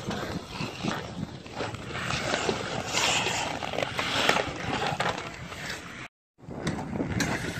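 Ice hockey play on an outdoor rink: skate blades scraping and carving the ice, with sharp knocks of sticks and puck. The sound drops out completely for a moment about six seconds in.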